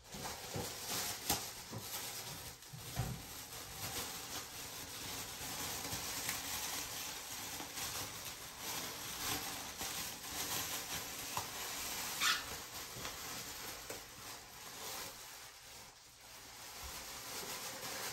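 Hands working conditioner through wet, thick locs, with a clear plastic shower cap crinkling as it is handled: a steady rustling and crackling with many small clicks, and a sharper crackle near the two-thirds mark.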